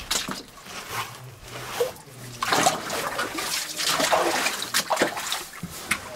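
A person moving carefully through a narrow timbered mine tunnel: shuffling footsteps, scrapes and knocks, with two louder bursts of scuffling in the middle.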